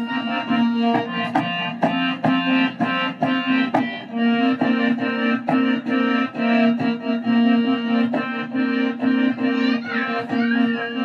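Instrumental interlude of a Gojri folk song: an electronic keyboard plays a reedy, accordion-like melody over held notes, with a steady drum beat.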